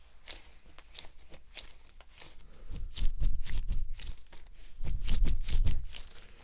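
Close-miked crinkling and crackling, a run of sharp crackles and clicks. It swells twice, at about three and five seconds in, into louder scrunching with a low rumble of handling against the microphone.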